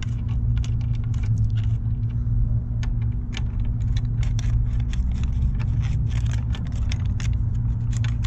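Scattered light clicks and taps of hands and tools working on a motorcycle's front brake caliper, several a second and irregular, over a steady low hum.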